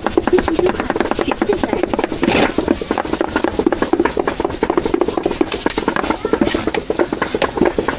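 Cleaver chopping meat for roujiamo on a wooden chopping block: a rapid, steady run of knocks, several a second.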